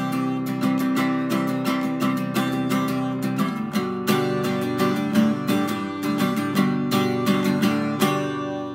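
Red Fender cutaway acoustic guitar strummed with a pick in quick, even strokes, changing chord about three and a half seconds in. The last strum near the end is left to ring.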